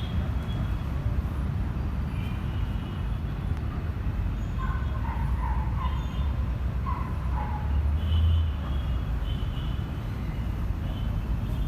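Road traffic: a steady low rumble of vehicle engines, with a brief louder swell about eight seconds in as a heavier vehicle passes.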